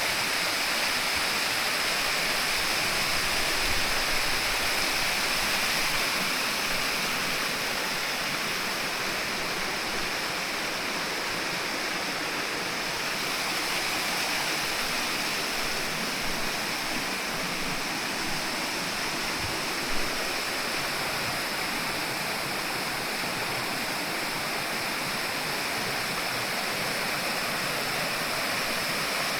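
Running water rushing steadily, a mountain stream or cascade in forest, with one brief tap about twenty seconds in.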